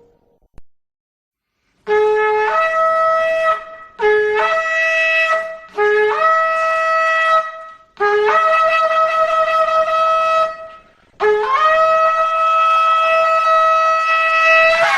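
Shofar (ram's horn) blown in five blasts after a short silence, each one starting on a lower note and jumping up to a higher one; the last blast is the longest, held for about four seconds.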